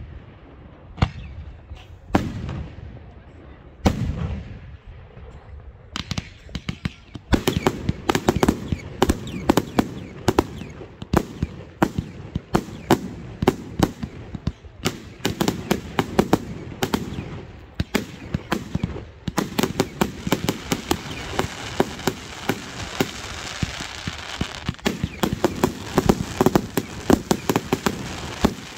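Professional fireworks display going off: a few separate bangs at first, then from about seven seconds in a dense, rapid barrage of bangs. Over the last third a steady crackling joins the bangs.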